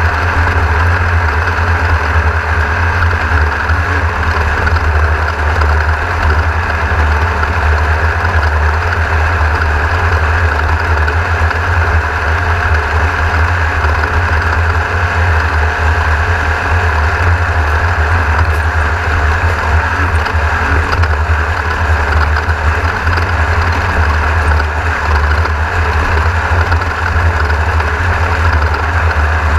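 Engine of a Class 1600 off-road race car, a VW-based air-cooled flat-four, running steadily as heard from on board. It is loud and even, with a heavy low rumble.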